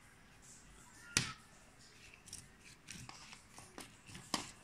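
Hands handling the paper insert and cardboard box of a pair of earbuds: a scattered series of sharp clicks and light taps with faint rustling, the loudest tap about a second in.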